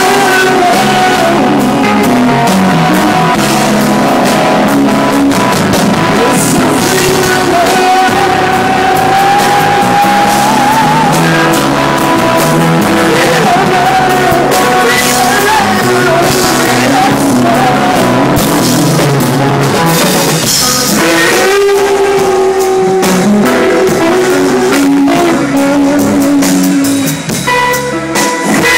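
Rock band jamming: electric guitar and drum kit with a voice singing a wavering melody line over them.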